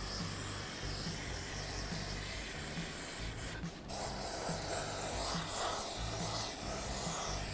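Aerosol can of brake parts cleaner spraying through its straw onto a new brake rotor in a steady hiss, cleaning off the rotor's protective packaging coating; the spray stops briefly about three and a half seconds in, then resumes.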